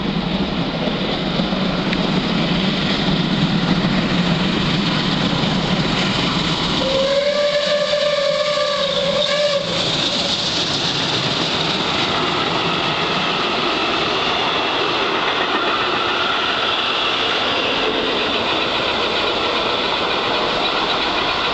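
Three-cylinder 4-6-2 Pacific steam locomotive 01 1075 running through a station at speed: a loud, steady rush of exhaust and wheels. Its whistle sounds one long steady note for about two and a half seconds, starting about seven seconds in, just before the engine passes. The train of coaches follows it through.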